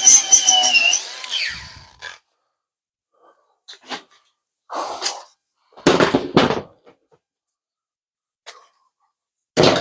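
Background music fading out over the first second or so, followed by a handful of short, separate noises with silence between them, the loudest two about six seconds in and just before the end.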